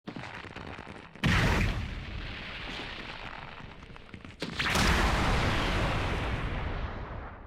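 Cartoon energy-blast and explosion sound effects. Two sudden blasts, about a second in and again past the middle, are each followed by a long rumble that dies away near the end.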